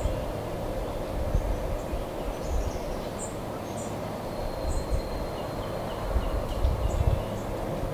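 Steam locomotive running toward the listener from a distance, heard as a steady low rumble. Short bird chirps come and go throughout.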